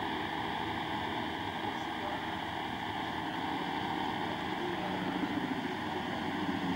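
Steady rushing outdoor race noise: the lead car and a group of racing cyclists going past on a descent, blurred into an even noise with a faint steady hum.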